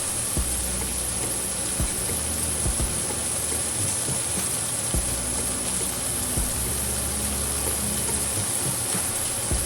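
Chicken pieces sizzling steadily on a hot non-stick grill pan, with scattered small pops and a low hum that cuts in and out every few seconds.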